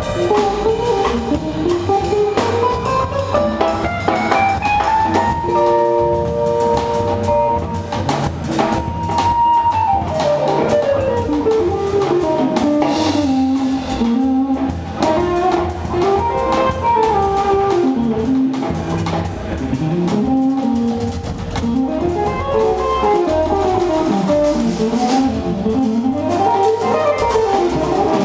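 Live jazz combo of saxophone, guitar, upright bass and drums playing. A quick single-note solo line runs up and down over the bass and drums, with one high note held for about four seconds some five seconds in.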